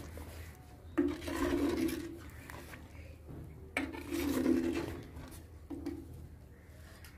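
Steel ladle stirring chicken in gravy in an earthenware cooking pot, scraping against the clay in three strokes: about a second in, around the middle, and a short one near the end.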